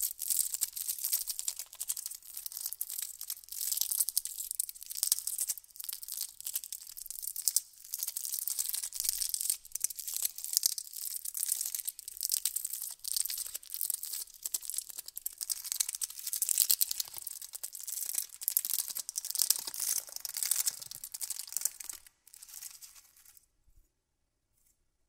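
Candy wrappers being crinkled: a dense, unbroken run of sharp crackles that stops near the end, with a few fainter crackles trailing off.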